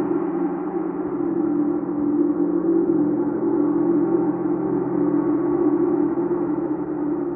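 Chau gong ringing in a sustained, dense wash of overlapping tones, strongest in a low-middle hum, swelling and easing gently without distinct strikes.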